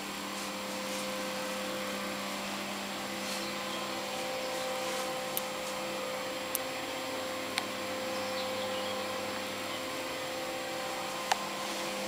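Steady hum of a small motor over a constant hiss, with a few short sharp clicks in the second half.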